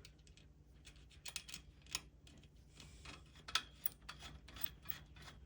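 Faint, irregular clicks and taps of small hardware being handled as a nut is put onto a bolt with washers to join the planter's frame parts; the loudest click comes about three and a half seconds in.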